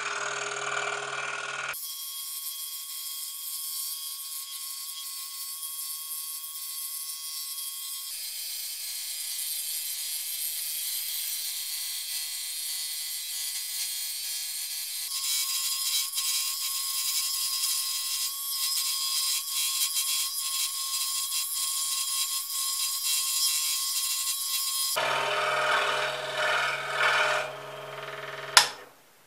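Scroll saw running, its reciprocating blade cutting a spiral through half-inch pine: a steady machine hum with a high hiss of the cut. The sound shifts abruptly a few times, and a sharp click comes shortly before it stops near the end.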